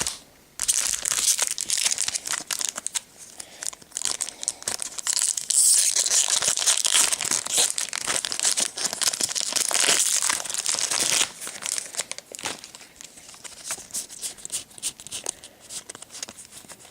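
Foil wrapper of a Magic: The Gathering booster pack being torn open and crinkled, loudest and densest in the middle stretch. Lighter rustling and clicks follow over the last few seconds.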